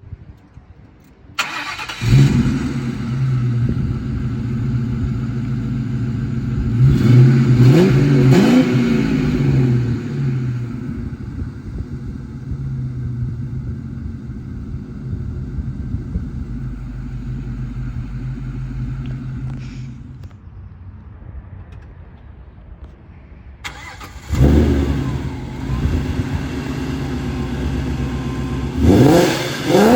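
Ford Mustang V8 with an aftermarket X-pipe exhaust starting up with a flare about two seconds in, then idling steadily, with a few quick revs around seven to nine seconds. After a quieter stretch, a second V8 start-up comes about twenty-four seconds in, settling to idle and revving again near the end.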